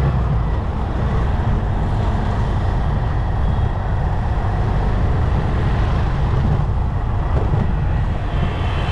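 Steady, loud rumble of a motorcycle ride on a road: engine and road and wind noise.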